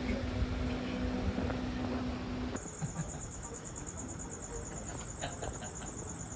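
Night insects chirping in a fast, steady, high-pitched trill. It replaces a steady low mechanical hum that cuts off abruptly about two and a half seconds in.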